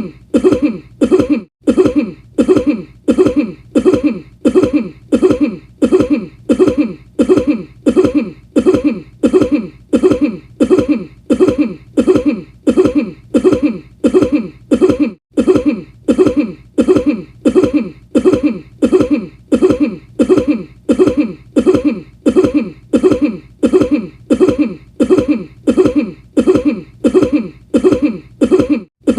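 A short cough repeated in a tight loop, about three coughs every two seconds, each one identical to the last.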